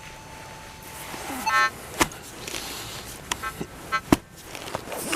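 A metal detector pinpointer holds a steady beep over a target for about the first second and a half, then gives a short buzz. This is followed by a series of sharp knocks and scrapes of a trowel digging in the soil.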